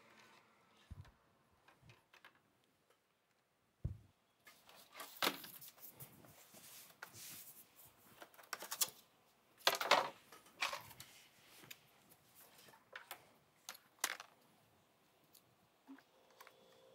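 Scattered clicks, taps and rustles of hands handling small parts, connectors and cables on a workbench while a repaired MacBook logic board is hooked up for a power-on test. A faint steady tone begins just before the end.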